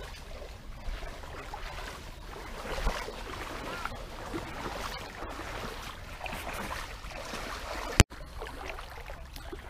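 Shallow stream water running and sloshing around wading legs, with a single sharp click about eight seconds in.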